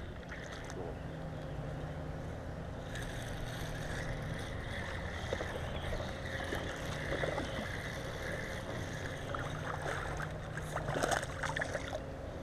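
Steady low hum and hiss of the open-air background, then a few short splashes near the end as a hooked largemouth bass is grabbed at the pond's surface by hand.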